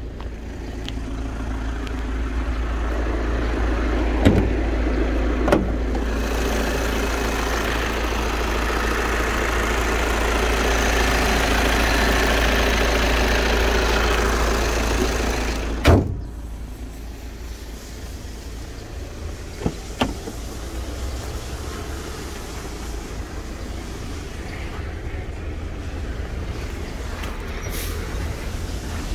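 Volkswagen Passat TDI diesel engine running at idle with the bonnet open, a steady loud clatter. A little over halfway through a single sharp thud, the bonnet shutting, after which the engine is heard much quieter and muffled.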